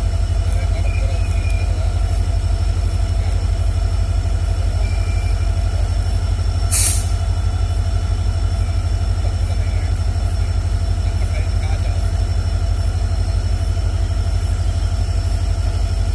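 EMD diesel locomotives (WDG4 and WDP4B, 16-cylinder two-stroke 710 engines) idling with a steady, low, throbbing hum. A short hiss of air is heard about seven seconds in.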